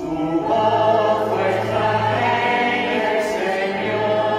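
Mixed church choir of men and women singing a responsorial psalm in long held notes, accompanied on the organ with a steady low note underneath.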